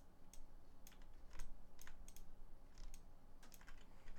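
Irregular computer keyboard and mouse clicks, about two a second, over a faint steady hum.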